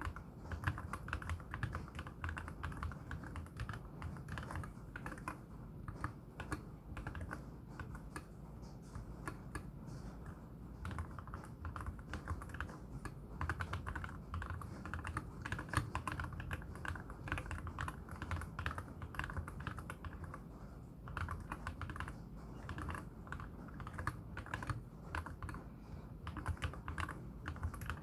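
Continuous fast typing on a MelGeek Z70 Ultra mechanical keyboard with lubed KTT Wine Red switches and MA-profile spherical keycaps: a dense, unbroken run of deep, muted key strikes.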